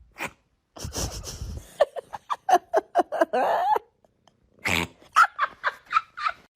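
A dog yapping in two quick runs of short calls, the second run higher-pitched.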